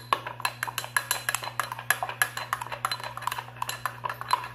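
A spoon stirring a honey, lemon and cinnamon syrup, clinking quickly and steadily against the side of its container, about five or six clinks a second.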